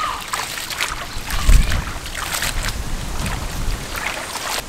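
Hands swishing leafy greens and red chillies through water in a stainless steel bowl: irregular sloshing and splashing with rustling leaves, and a dull thump about one and a half seconds in.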